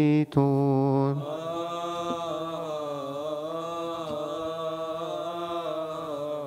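Coptic Orthodox liturgical chant. A loud held note breaks off about a second in, and a softer sung line follows, winding up and down in pitch on long vowels until it fades near the end.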